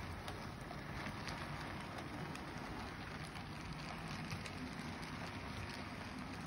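OO gauge model trains running: a Bachmann class 45 diesel model and its wagons rolling along the track with a steady rattling hum and many small, irregular clicks as the wheels cross rail joints and points.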